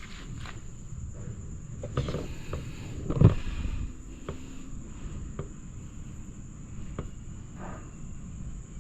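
Scattered light knocks and clicks, the loudest about three seconds in, over a steady high-pitched hum.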